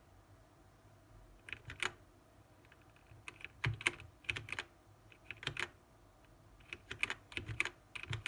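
Typing on a BlitzWolf BW-KB1 mechanical keyboard with Gateron switches: irregular bursts of key clicks, several quick keystrokes at a time with short pauses between.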